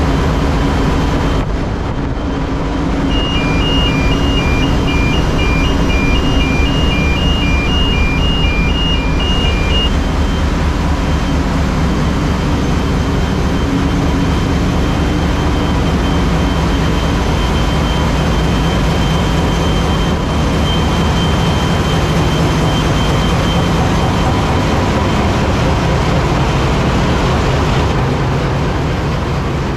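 Loud, steady din of ship engine-room machinery running, with a steady hum and a few constant high tones. From about three seconds in to about ten seconds in, a fast intermittent electronic beep sounds over it.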